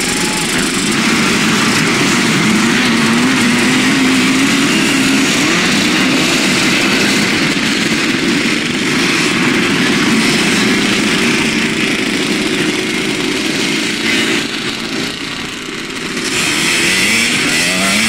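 Vintage motocross motorcycles racing past on a dirt track, their engines revving up and down as riders go by one after another.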